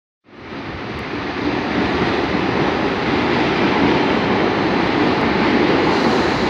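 CPTM series 2000 electric multiple unit running along the platform: a steady noise of motors and wheels on rail. It swells over the first second or two, then holds even.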